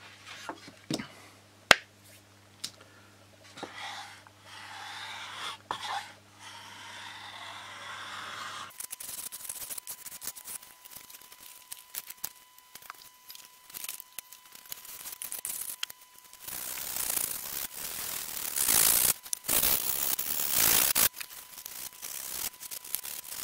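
Small balsa plane shaving a balsa wood wingtip in repeated short strokes to round over its end, the blade peeling off curls with a scraping, tearing sound. The strokes come thicker and louder in the second half.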